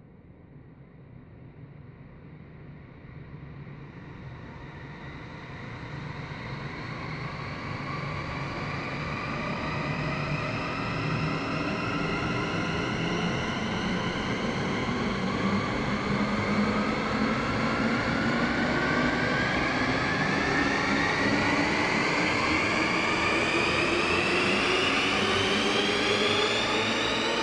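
Synthesized cinematic riser sound effect: a rumbling swell that grows louder over the first dozen seconds and then holds, with a stack of tones gliding slowly upward throughout, like a jet engine spooling up.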